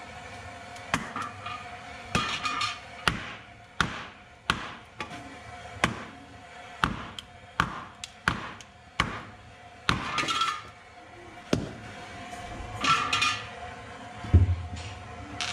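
Firewood being split with a chopping tool: about fifteen sharp strikes, unevenly spaced, a few of them followed by a short rattling noise, and two dull thuds near the end.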